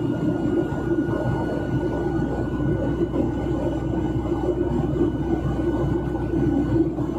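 Steady cabin noise of a Boeing 737-900ER climbing after take-off, heard from a window seat: the even rush of its CFM56-7B engines and airflow, with a faint steady high whine over it.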